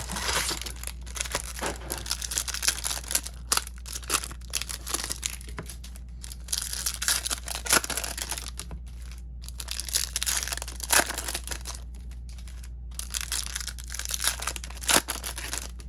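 Foil wrappers of baseball card packs crinkling and tearing as packs are opened and handled, in irregular spurts with brief pauses, over a steady low hum.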